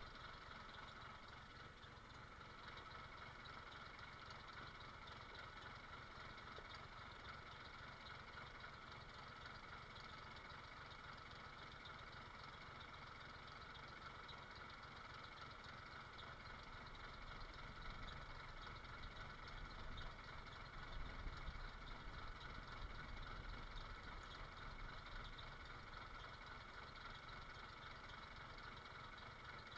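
Faint, steady engine running at idle, with a low rumble that swells for a few seconds past the middle and then settles back.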